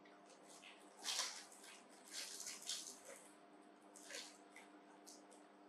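Faint short rustling and smacking sounds in three brief clusters, about a second in, around two to three seconds in, and near four seconds: a pet macaque being hand-fed pieces of fruit.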